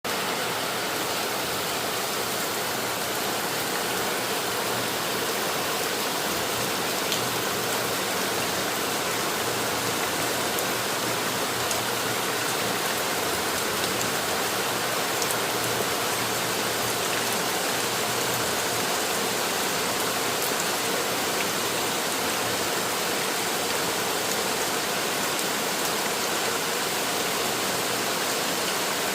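Heavy rain falling steadily, a constant even hiss with faint scattered drop ticks.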